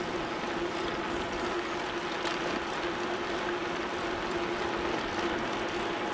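Bicycle rolling along a paved trail: a steady rush of tyre and wind noise on the microphone, with a steady low hum under it and a few faint clicks.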